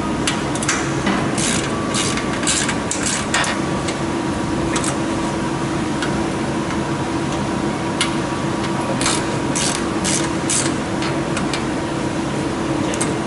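Hand tools at work on a motorcycle: two runs of short, sharp metallic clicks and rasps, one near the start and one past the middle, over a steady hum.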